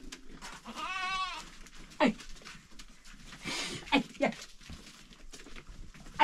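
A single bleat with a quavering pitch about a second in, from a goat or sheep, followed by a few short, faint sounds.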